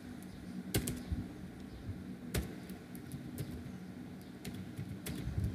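Computer keyboard keystrokes: a handful of separate, unhurried clicks, as a spreadsheet formula is typed in, over a low steady hum.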